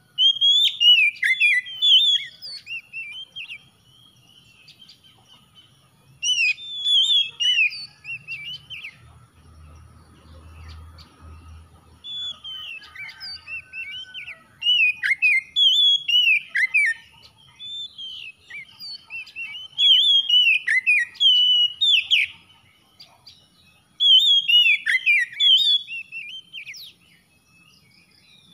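Oriental magpie-robin singing: rapid, varied whistled phrases that rise and fall. It comes in bursts with short pauses, a phrase at the start and another about six seconds in, then sings almost without a break through the second half.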